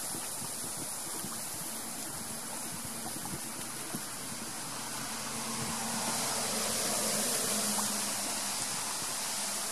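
Water washing along a moving canoe's hull and around the paddle as it is stroked through the lake, a steady hiss that swells a little past the middle, with a faint knock about four seconds in.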